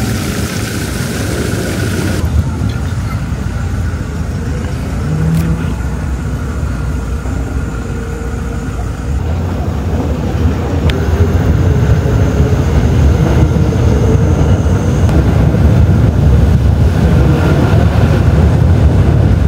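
A car driving, with a steady low engine and road rumble that grows louder about halfway through.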